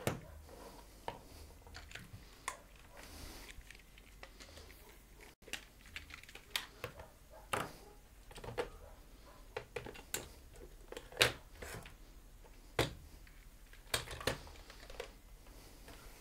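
Irregular sharp clicks and taps of small hand tools and phone parts being handled and set down on a workbench, the loudest about eleven seconds in.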